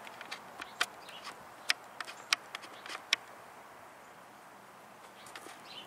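A few sharp clicks and ticks over a faint steady outdoor hiss, scattered through the first three seconds, then a quieter stretch.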